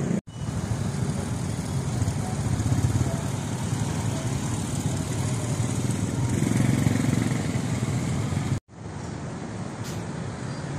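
Street traffic: motorcycles and cars running and moving slowly past in a steady rumble. The sound drops out briefly twice, right at the start and about eight and a half seconds in.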